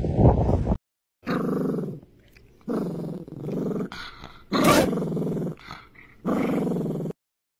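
Dog growling in four drawn-out bursts, each about a second long, with short gaps between them.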